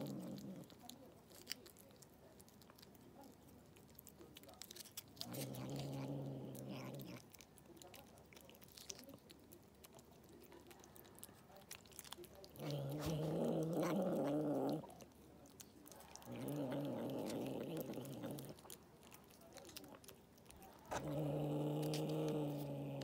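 A cat growling while it licks at a lickable treat: four low, drawn-out growls of about two seconds each, the third one wavering, with soft licking and chewing clicks between them. It is the wary growl of a cat not yet used to people.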